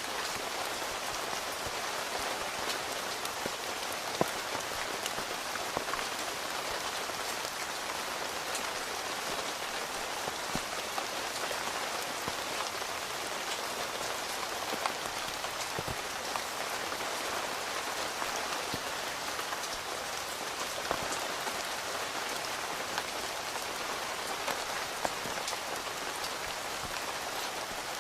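Steady rain falling on a tent, heard from inside: an even hiss of rain with individual drops ticking sharply on the fabric now and then.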